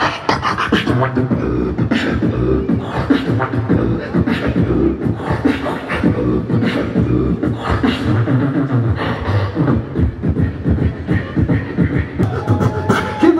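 A beatboxer performing into a handheld microphone through a stage sound system: a fast, continuous run of vocal drum sounds, sharp clicks and low thumps.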